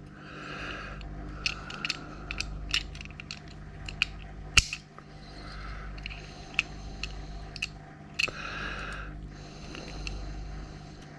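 Scattered small metal clicks and taps of hand disassembly of an old hard disk drive, with one sharper click about four and a half seconds in.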